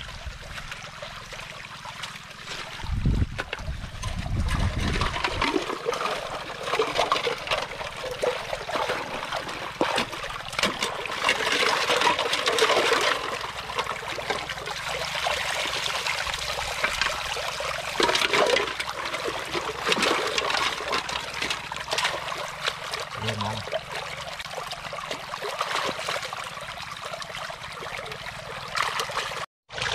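Hands sloshing and splashing in shallow muddy paddy water while groping for snails, with trickling and dripping water and many small wet clicks that swell and fade. A brief low rumble a few seconds in.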